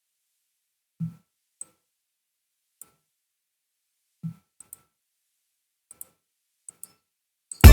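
Sparse faint clicks and two soft low thumps, then near the end a loud electronic pop beat starts abruptly: the second-chorus section of a beat remake playing back from FL Studio, with synth chords and deep bass.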